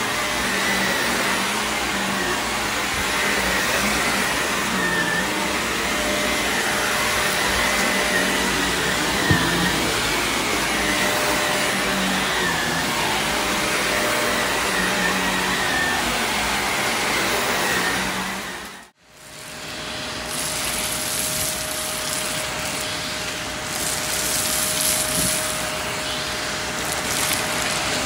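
A Shark vacuum cleaner running steadily as it is pushed over carpet. About two-thirds of the way through, the sound cuts out for a moment, then the vacuum runs again through a hose nozzle, with spells of extra hissing and rattling as it sucks up cereal rings and hair.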